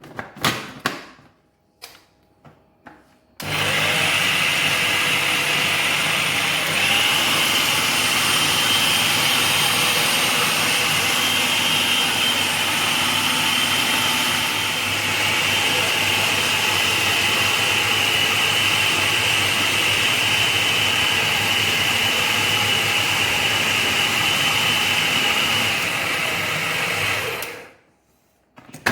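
Electric food chopper motor running steadily with a high whine, chopping raw chicken, onion, chili and breadcrumbs into a fine mince. It switches on a few seconds in, after a few small knocks, and cuts off suddenly near the end.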